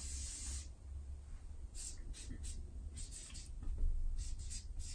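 Felt-tip marker scratching and squeaking across flip-chart paper: one longer stroke as a line is drawn, then a string of short strokes as a word is written, about two seconds in and onward.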